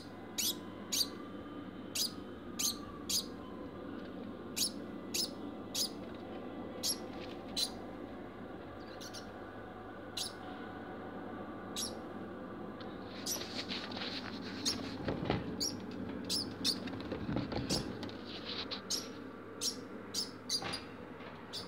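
A degu barking after mating: short, sharp, high barks repeated at an irregular pace of roughly one a second, coming faster in the second half. A stretch of rustling runs through the middle.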